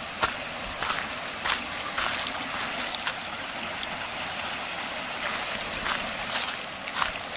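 Small waterfall: a steady rush of falling water, broken by irregular sharp splashes about once or twice a second.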